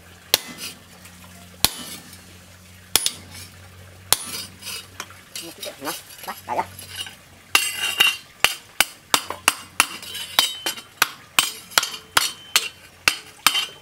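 Hand hammer striking a steel cleaver blade held in tongs on a stake anvil. A few scattered metal knocks come first, then from about halfway a steady run of blows, two or three a second, each with a ringing clink.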